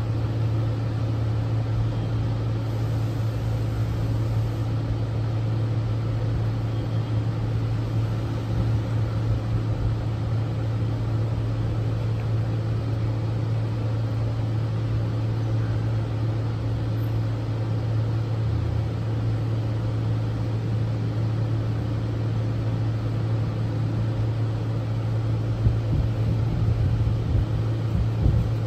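A steady low machine hum that does not change throughout, with a few light knocks near the end.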